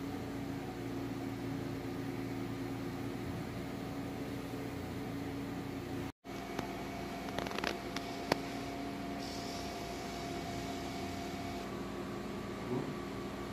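Handheld percussion massage gun running steadily against the shoulder muscles, a constant motor hum at one pitch. It cuts out briefly about six seconds in, followed by a few light clicks.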